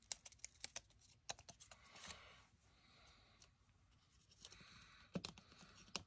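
Faint handling noises on a work mat: a quick run of light clicks and taps, then soft rustling, with a couple of sharper taps near the end, as a pouch battery is stuck down with tape and pressed onto the LED light's circuit board.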